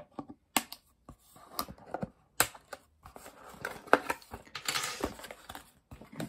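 Cardboard toy-packaging insert being handled as small plastic accessories are worked free from it: rustling and scraping of card, broken by sharp clicks and snaps, the loudest about half a second, two and a half and four seconds in.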